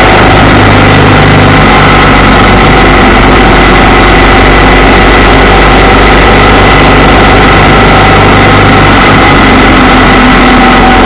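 Motorcycle engine running at a steady speed while riding, heard from on the bike itself, with wind and road noise. It is loud and even throughout, with no change in revs.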